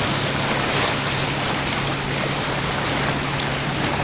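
Choppy seawater washing and splashing over shoreline rocks, with a steady low hum underneath.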